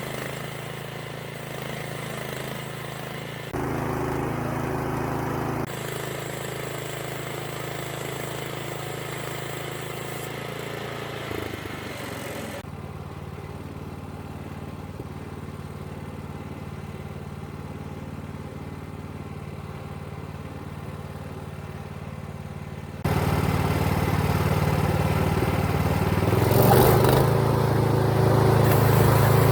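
An engine running steadily, its hum changing abruptly in level and tone several times, with a brief shift in pitch about eleven seconds in and a louder stretch over the last several seconds.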